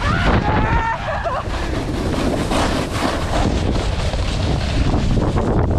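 Wind rushing over the microphone of a snowboarder riding downhill at speed, a loud steady rumble, with the hiss and scrape of snowboard edges carving packed snow.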